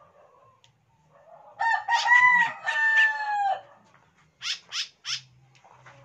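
A rooster crowing once, about two seconds long, the loudest sound here. Three quick high chirps from small birds follow.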